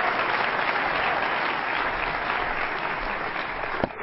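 Large audience applauding, dense and steady, easing off slightly toward the end, with a sharp click just before it cuts.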